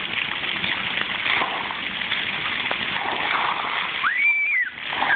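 Splash pad water jets spraying and splashing onto the play surface in a steady hiss, with a child's brief high-pitched squeal about four seconds in.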